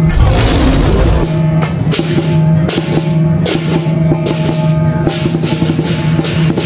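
Lion dance drum and cymbals playing a fast, steady rhythm of drum beats and cymbal crashes, with a steady low tone held underneath.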